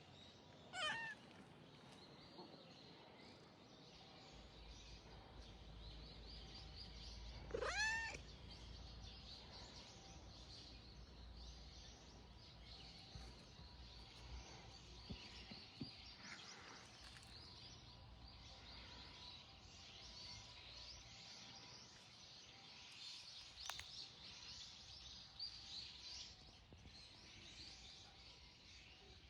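Calico cat meowing twice, once about a second in and once near eight seconds, with a low purr underneath for several seconds. Faint high chirping runs in the background.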